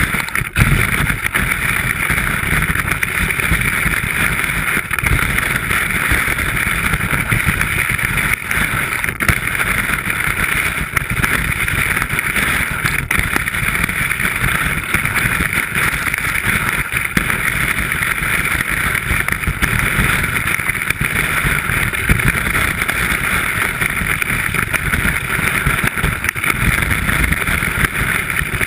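Steady rushing noise of skiing heard through a ski-mounted GoPro: wind over the camera housing, with the hiss and low rumble of the skis running over snow.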